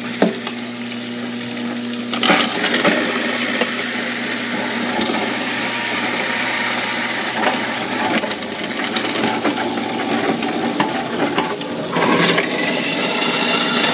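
Water running steadily from a kitchen tap into a metal sink, with a few knocks and clinks as food scraps are pushed down the drain.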